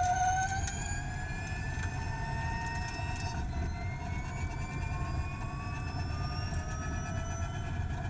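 Gen2 Formula E car's electric motor and gearbox whining, the whine rising slowly in pitch as the car speeds up, over a steady low rumble of tyres and road.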